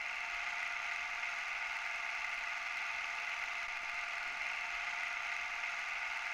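A steady, even hiss in the upper-middle range that holds at one level without any rhythm or change.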